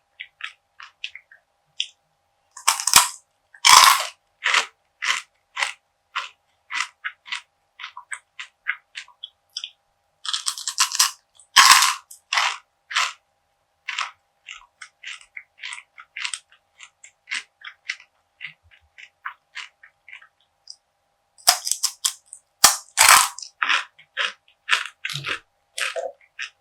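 Crunchy bites into perilla seed gangjeong (a brittle seed bar bound with syrup), close-miked. Three louder bites come about 3, 11 and 22 seconds in, each followed by crisp crunchy chewing at about two crunches a second.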